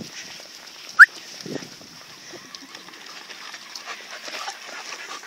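A German shepherd gives one short, high whine that rises in pitch about a second in, over light wind noise.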